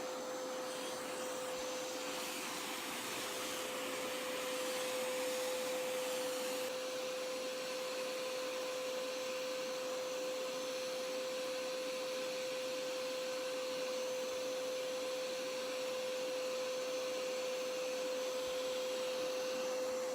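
Hoover Power Scrub Elite Pet carpet cleaner running with its handheld hose tool, the suction motor giving a steady whine over a hiss of air and water being drawn up from a wet rug. A brighter hiss rises for a few seconds near the start, then the sound settles.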